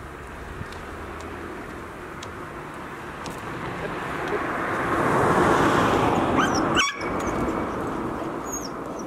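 A car drives past on the road. Its tyre and road noise swells to a peak about five to six seconds in, then fades. A few short high chirps come near the end.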